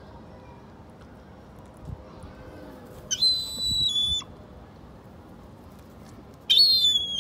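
A young gull giving two high, thin whistling calls, each dropping slightly in pitch: a first call of about a second, and a second one about three seconds later.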